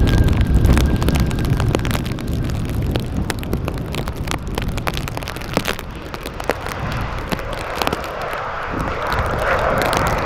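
Jet airliner engine noise mixed with strong wind buffeting the microphone and many short crackles. A faint steady high whine fades out in the first few seconds, and a rushing hiss swells near the end.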